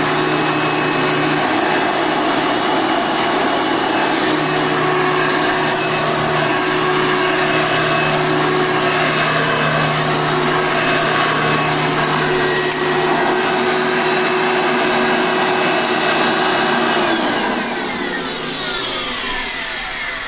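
Hoover Tempo upright vacuum cleaner running steadily, then switched off about three-quarters of the way through, its motor whine falling in pitch as it spins down.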